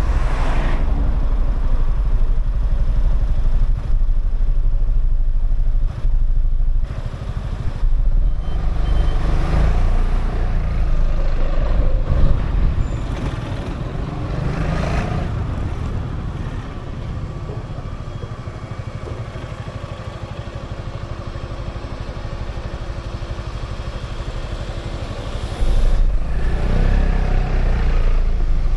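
Gilera Fuoco three-wheeled scooter's single-cylinder engine running on the move, with road noise. It quietens about halfway through and picks up sharply again near the end.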